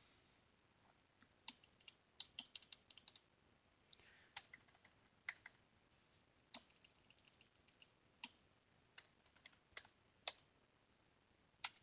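Faint keystrokes on a computer keyboard, tapped at uneven intervals with a quick run of keys about two to three seconds in, as a terminal command is edited.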